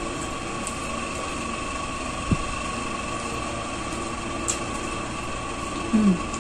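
Steady machine hum with two high, steady whining tones, under people eating: a sharp thump a little over two seconds in, a small click later, and a short hummed voice sound near the end.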